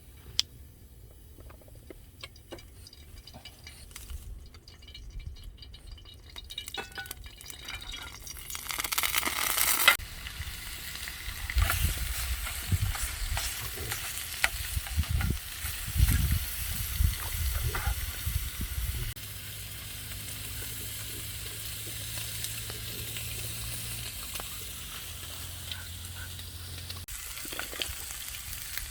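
Food frying in a pan: the sizzling starts loudly about nine seconds in, with clattering stirring strokes, and then settles into a steady sizzle.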